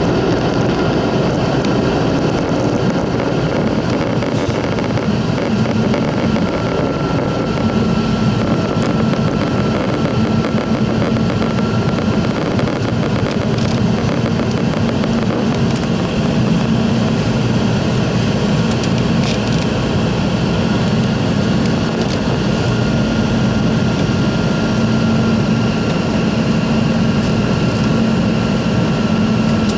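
Steady cabin noise of a Boeing 717-200 on approach: airflow over the fuselage and the hum of its rear-mounted Rolls-Royce BR715 turbofans heard from inside, with a faint high whine that comes and goes.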